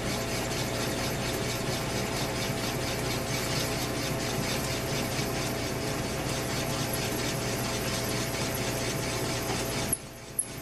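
South Bend lathe running while a drill bit is fed into a handlebar's bore, a steady machine hum with fast rhythmic ticking. It drops off abruptly near the end, with two sharp clicks.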